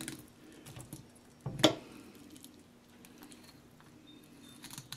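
Fillet knife cutting through a small panfish on a wet wooden board: faint wet squishing and small clicks. One sharper knock about one and a half seconds in.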